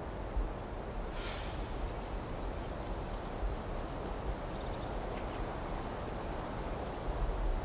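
Wind buffeting a microphone outdoors, a steady rumbling hiss of open-air noise, with a short higher hiss about a second in.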